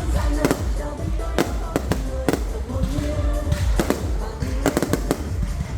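Fireworks going off in a display: sharp bangs at irregular intervals, several within some seconds, over a continuous low rumble, with music playing underneath.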